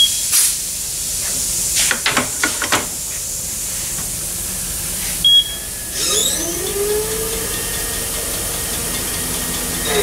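Road force wheel balancer testing a car tire: a few knocks as the wheel is set up, a single short beep about five seconds in, then the machine spins the tire up with a rising whine that levels off, over a steady hiss.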